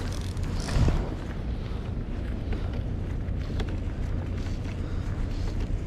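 Wind buffeting the microphone, a steady low rumble, with one louder thump about a second in and a few faint ticks.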